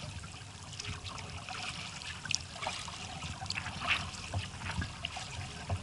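Water dripping and trickling off a kayak paddle, with small irregular splashes as the blade dips into the water.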